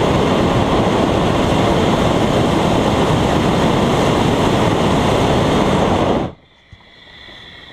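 Hot air balloon's propane burner firing a long blast: a steady, loud roar that cuts off suddenly about six seconds in.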